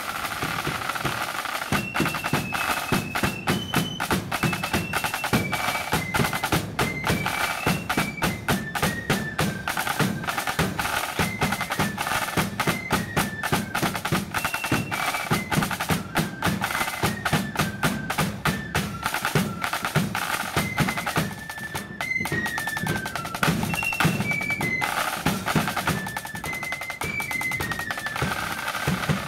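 Marching flute band playing a tune: flutes carry a single melody in unison over rapid snare-drum rolls and the steady beat of a bass drum.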